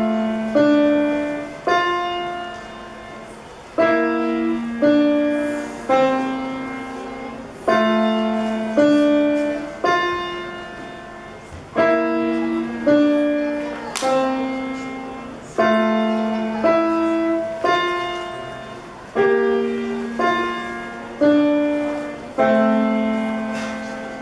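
Slow solo piano music: chords struck about every two seconds, each ringing and fading before the next.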